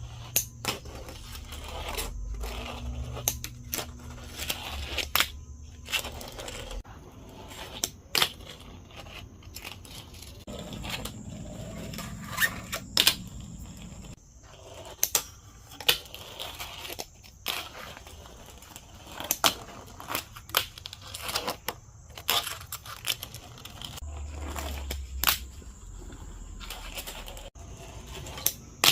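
Fingerboard being skated on a small DIY park: repeated sharp clacks of the board popping and landing, with the wheels rolling and the trucks scraping and grinding along rails and curbs.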